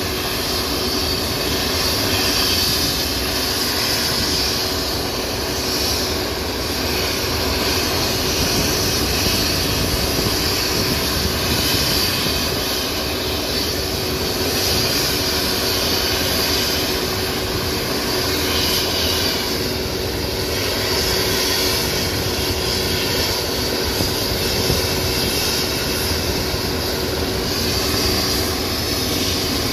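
Eurocopter EC135 helicopter with Fenestron tail running on the ground with its twin turbines and rotors turning, giving a steady turbine whine over the rotor noise, waiting to lift off.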